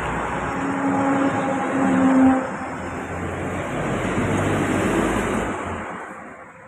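A motor vehicle engine running as a steady drone with a low hum, which fades away about five and a half seconds in.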